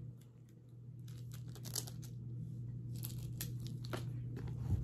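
Paper food packaging being handled: scattered crinkling and tearing over a steady low hum.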